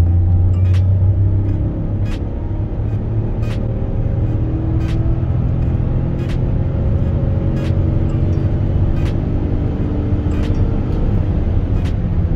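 Citroën Berlingo's 1.2 PureTech three-cylinder turbo petrol engine pulling hard under full throttle, heard from inside the cab, its pitch climbing slowly and steadily as the van accelerates through one gear during a power run. Light regular ticks come about every one and a half seconds.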